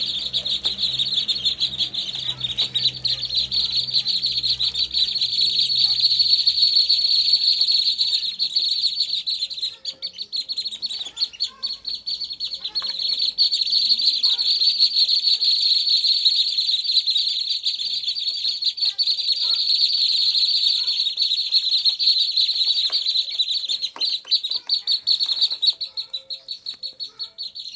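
A brood of ruddy shelduck ducklings peeping continuously in a dense, high-pitched chorus.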